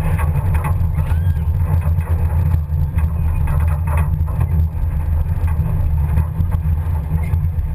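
Pinzgauer off-road truck driving along a woodland track, heard from its open rear bed: a steady low rumble of engine and drivetrain.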